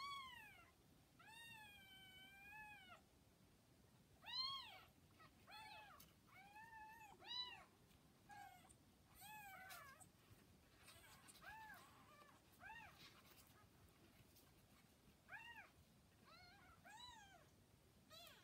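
Newborn kittens, about two days old, mewing: a string of short, high-pitched cries that rise and fall, one to two a second, with one longer held cry about a second in.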